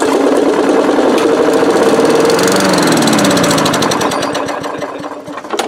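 Craftsman 4.5 hp push-mower engine firing on starting fluid and running rough for about five seconds, slowing past the middle and fading, then sputtering out with a few pops near the end. It runs only on the sprayed fluid, which shows it has spark.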